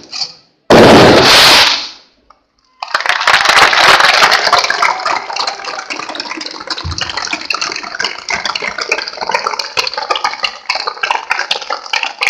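A firework goes off in one loud burst about a second in. After a short break, a large crowd applauds, a steady rush of many hands clapping.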